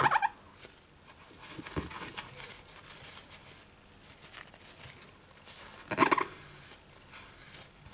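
A tissue wiped over an iPad 2's bare LCD panel to clear dust: faint rubbing with two short, high squeaks of tissue on the screen, one at the start and one about six seconds in, and a soft knock just before two seconds.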